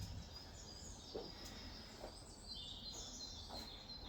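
Faint birdsong: a series of short, high chirps and whistled notes, with a couple of faint knocks.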